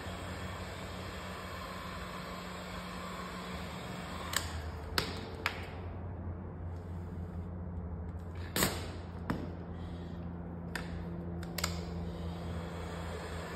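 Handheld heat gun blowing as vinyl wrap film is heated, over a steady low hum. Partway through the blowing drops away and the film gives several sharp snaps and crackles as it is lifted and pulled taut by hand, after which the heat gun's blowing comes back.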